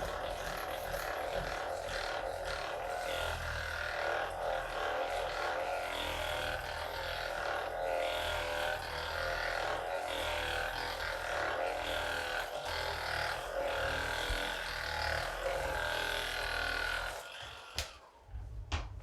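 Electric handheld massage device droning steadily as it is worked over the patient's muscles, its pitch wavering slightly under pressure, then switching off about 17 seconds in.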